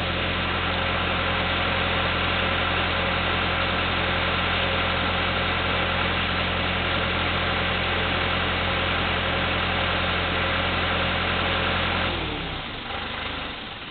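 An engine idling steadily, then shut off about twelve seconds in, its pitch sagging as it winds down and goes quiet.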